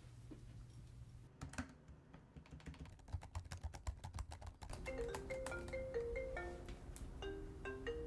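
Rapid typing on a laptop keyboard. It gives way about five seconds in to a mobile phone ringing with a marimba ringtone, a short pattern of mallet-like notes that begins again near the end.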